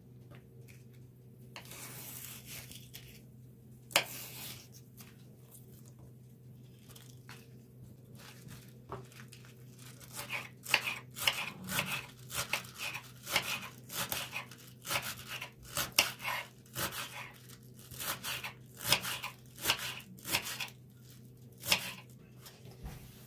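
Napa cabbage leaves being cut with a kitchen knife on a wooden board. At first there are scattered rustles and one sharp knock. About ten seconds in, a steady run of crisp slicing strokes begins, roughly two a second, as the leaves are cut into thin strips.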